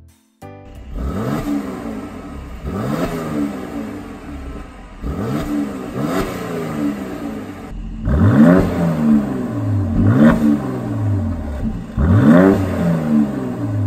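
Mercedes-AMG C43's 3.0-litre V6 revved repeatedly while standing, through the stock exhaust, each blip rising and falling in pitch. The exhaust is in Comfort mode at first, then louder in Sport+ mode from about eight seconds in.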